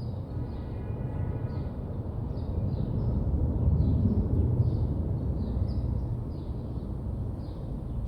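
A deep, unexplained rumbling drone from the sky, swelling in loudness about halfway through and then easing, with no aircraft in sight to account for it.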